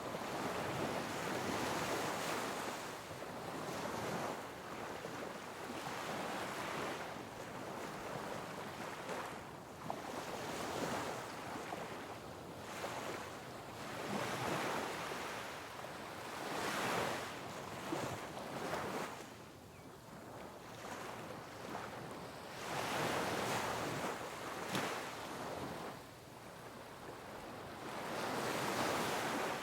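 Sea waves breaking and washing over rocks along a rocky coastline, in a continuous rush that swells with each incoming wave every few seconds and then ebbs.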